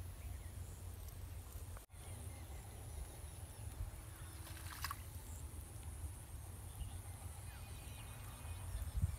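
Quiet outdoor ambience with a steady low rumble and a faint brief noise about five seconds in.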